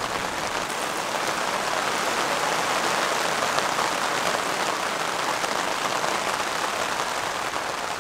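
Moderate rain falling steadily, an even, unbroken hiss.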